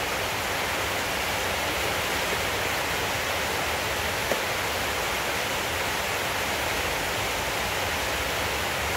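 Steady hiss of background noise, even throughout, with one faint click about four seconds in.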